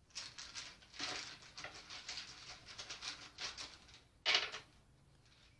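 Oracle cards being handled and turned over: a quick run of light flicks and rustles, then one louder card swish about four seconds in.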